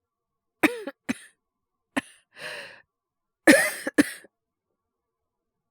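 A young man coughing from a cold that has got worse, acted: a few short coughs, a noisy breath drawn in, then a louder, harsher cough with another right after it.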